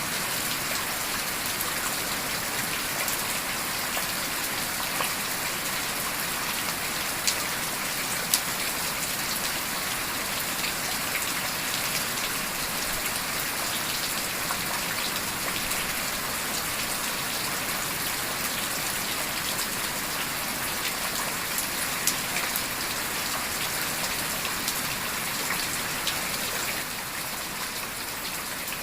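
Heavy rain falling steadily, an even hiss, with a few sharp clicks standing out over it and the rain easing slightly near the end.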